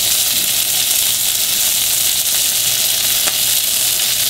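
Yellowtail snapper fillets sizzling steadily as they fry in a frying pan.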